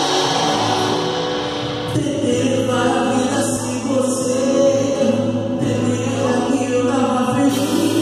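Live Christian worship music: several voices singing together, accompanied by acoustic guitar and hand drums.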